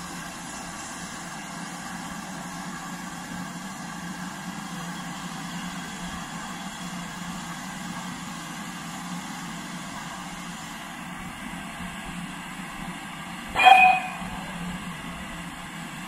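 GWR Modified Hall steam locomotive no. 6989 standing in steam, with a steady hiss of escaping steam, and one short blast of its whistle about three quarters of the way through.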